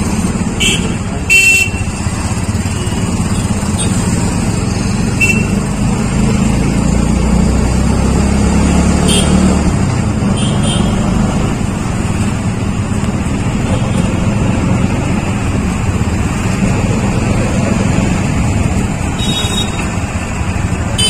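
Busy street traffic: the engines of auto-rickshaws and motorbikes run steadily, and short horn beeps sound several times. The loudest beeps come about a second and a half in and near the end.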